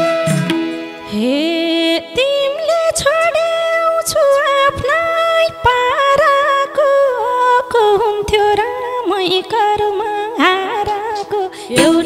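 A woman singing a Nepali dohori folk melody with ornamented turns, the line starting about a second in, over a steady held drone and madal drum strokes.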